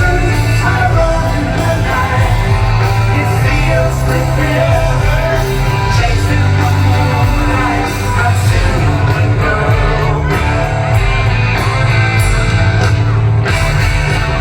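Live rock band playing loud and steady, with electric guitars, bass and drums, and some singing.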